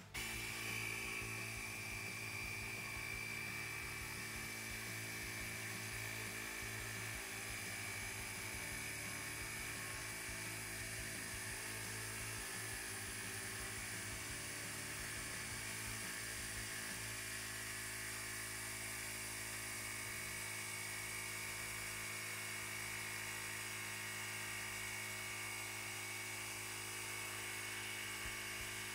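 Ryobi USB Lithium compact high-pressure inflator running: a small battery-powered air compressor that starts suddenly and runs steadily with a high whine over a low hum.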